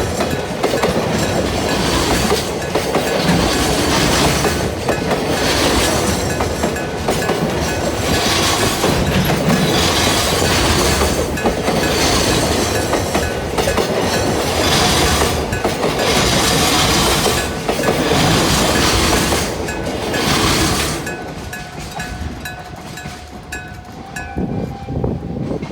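A freight train rolls over a level crossing, its wheels clacking in loud surges every second or two, while the crossing's electric gong bell rings. About 21 seconds in the train noise falls away and the bell's quick, even strikes are heard plainly.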